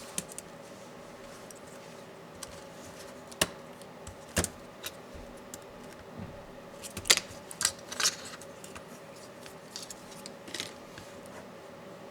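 Irregular sharp clicks and taps of tools and small laptop parts being handled while a Dell Latitude 7410 is taken apart, in clusters at about three and a half, four and a half, seven to eight, and ten and a half seconds in.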